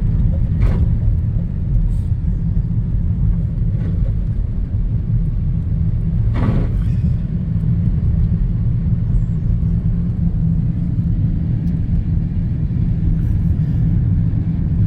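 Steady low road rumble inside a moving car's cabin, with a few faint clicks, the clearest about six and a half seconds in.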